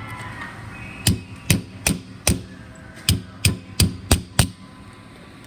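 A hammer tapping a pin down into a bag clamp: nine sharp strikes in two runs, four and then five, about two to three a second, driving the pin all the way down.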